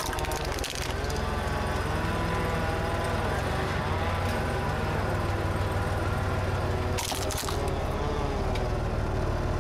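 Car engine running steadily as the car rolls over a plastic disposable camera. There is a short crackle at the start, and a brief burst of cracking about seven seconds in as the tire crushes the camera.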